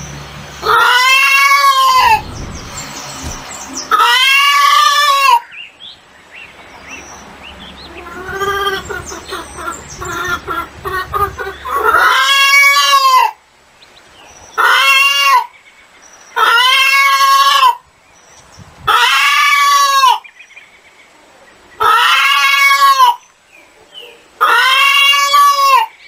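Chickens calling: about eight loud, drawn-out calls, each about a second long and rising then falling in pitch, with fainter clucking between them.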